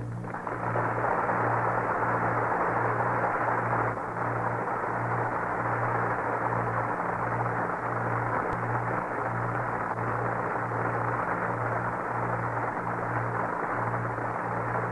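Studio audience applauding steadily after a song, on an old radio recording. A low hum pulses about once a second under it.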